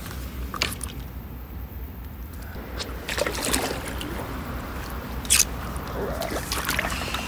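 Water sloshing and trickling against an inflatable stand-up paddleboard as the paddler kneels and handles the board, with a few sharp knocks, the loudest about five seconds in.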